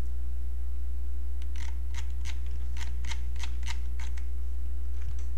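Steady low electrical hum, with a run of about nine sharp clicks, roughly three a second, between about one and a half and four seconds in: computer clicks as the pages of a document are scrolled through.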